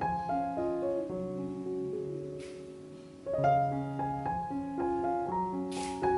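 Background piano music: a gentle melody of struck notes and chords that thins out and fades about halfway through before new chords come in.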